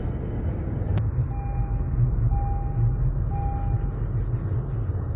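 Low, steady engine and traffic rumble heard from inside a car in stop-and-go traffic. About a second in, three evenly spaced electronic beeps follow, one per second.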